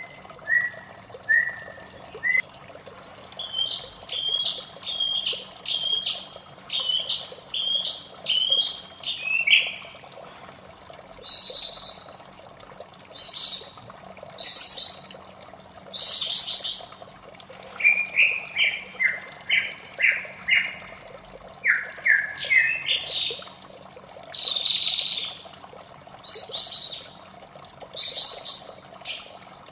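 White-rumped shama singing: varied phrases of short repeated whistles and sharper high notes, one phrase after another with brief pauses. A steady sound of running water underneath.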